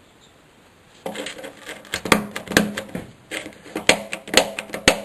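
A worn GM steering-column headlight dimmer switch being clicked by hand, a string of irregular sharp metallic clicks starting about a second in. The switch works but is not very smooth, crunching as it moves.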